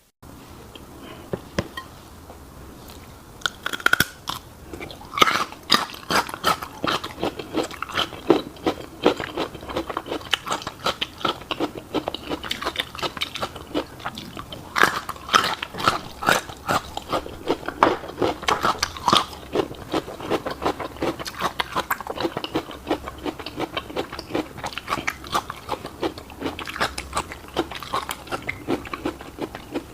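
Close-miked chewing of a fish roe and rice bowl: a dense run of small, sharp crunches and clicks from about three seconds in, as the roe and rice are bitten and chewed.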